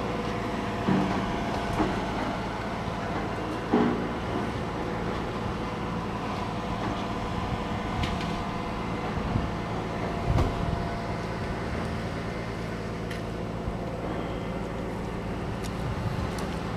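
An engine running steadily, with a few short knocks and clanks over it, the loudest about four seconds in.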